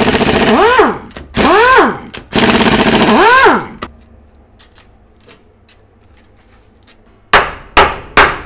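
Pneumatic impact wrench rattling in three bursts on the bolts of an Aisin AW55-51SN automatic transmission case; each burst ends with the motor's whine rising and then falling away. Near the end come three sharp hammer blows on the transmission case.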